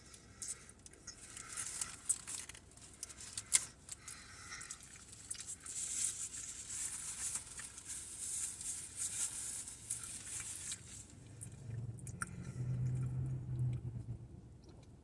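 A man eating a McDonald's McDouble cheeseburger close to the microphone: wet chewing clicks and the paper wrapper crinkling and rustling, busiest in the middle. Near the end a low steady hum, like a closed-mouth "mm".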